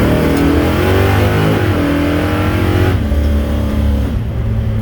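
Carbureted car engine accelerating hard with the carburettor's secondaries opening, the revs climbing, dipping briefly about one and a half seconds in, climbing again, then falling to a steady lower drone about three seconds in. It pulls without hesitation, the fuel problem cured by the carburettor rebuild and a working secondary diaphragm.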